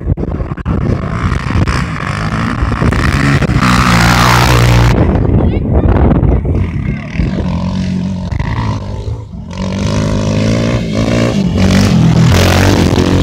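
Racing ATV and dirt bike engines revving as they run the dirt track, their notes rising and falling. The loudest moments come about four seconds in and again near the end, when a machine with headlights passes close.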